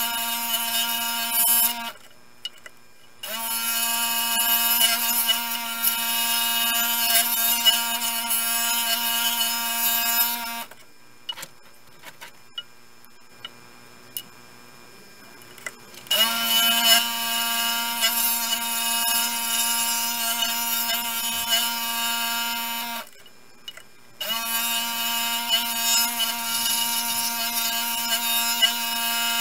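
Scroll saw running and cutting thin wood, a steady motor hum with a high whine. It is switched off and back on three times: briefly about two seconds in, for about five seconds in the middle, and briefly near the end.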